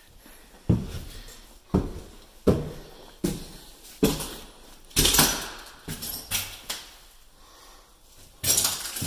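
Footsteps of a person walking across a bare floor: about ten heavy steps, roughly one a second, with a short pause near the end.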